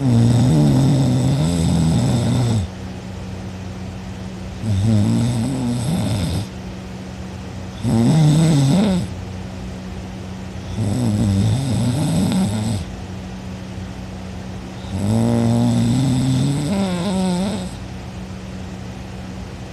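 A sleeping person snoring loudly: five snores a few seconds apart, each lasting one to two and a half seconds, with a wavering pitch.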